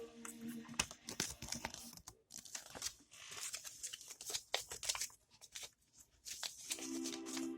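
Crinkly toy packaging being torn open and crumpled by hand, in irregular rips and rustles.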